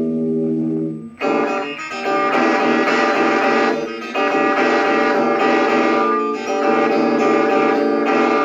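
Guitar music: a chord rings for about a second, then strummed chords carry on steadily.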